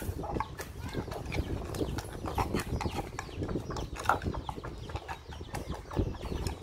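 Wooden pestle pounding chilies in a deep wooden mortar: a run of irregular knocks, several a second.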